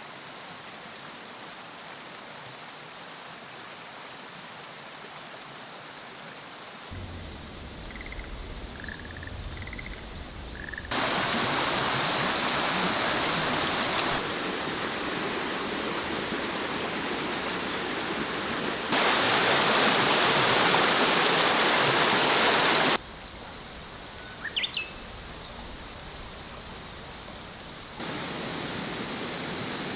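Outdoor nature ambience cut together in sections: an even rushing hiss that jumps louder and quieter at several edits, with a few short bird chirps, among them one high rising call near the end.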